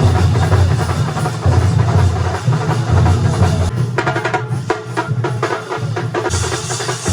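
Festival percussion group playing loud drums: deep low booms under a busy beat, with a fast run of sharp strikes about four seconds in and a bright high hiss joining about six seconds in.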